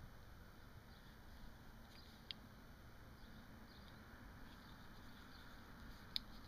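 Near silence: faint background hiss, with a single short click about two seconds in and another near the end.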